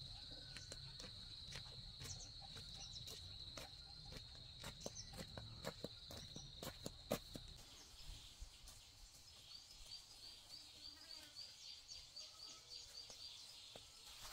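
Faint outdoor ambience: insects give a steady high drone for about the first half, with scattered clicks and knocks throughout. Later a bird chirps in a quick run of about a dozen notes.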